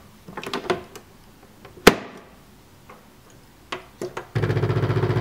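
Clicks and knocks from handling a Bosch pod coffee machine and mug, with one sharp snap about two seconds in. Its start button is pressed near the end, and the machine's pump starts with a loud, rapidly pulsing buzz as it begins brewing.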